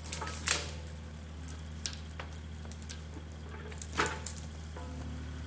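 Excavator's diesel engine running as a low steady drone, with sharp crackles and snaps of brush and twigs about half a second in, around four seconds in and again at the end.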